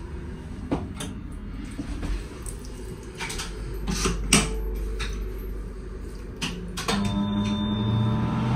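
Clicks and knocks in a train toilet over the low rumble of the moving train. About seven seconds in, the toilet's automatic washbasin unit, set off by a hand, starts up with a steady hum and a rising hiss.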